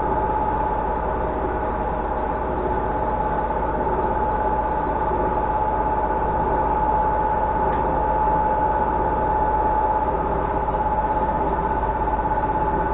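Metal lathe running steadily with a rock-drill auger head turning in its chuck: a constant mechanical hum with a steady high whine over it.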